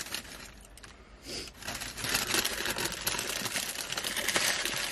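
Close-up chewing, then from about two seconds in a paper sandwich wrapper crinkling as the gyro is handled.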